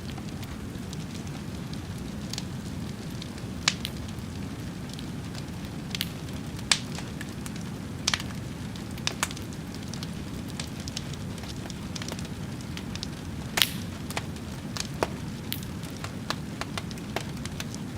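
Fire crackling: sharp, irregular pops and snaps, some louder than others, over a steady low rumble.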